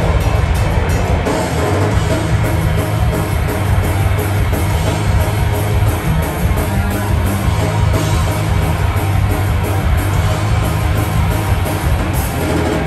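Live metalcore band playing at full volume: distorted electric guitars, bass and drum kit in a dense, steady wall of sound, with cymbal crashes cutting through.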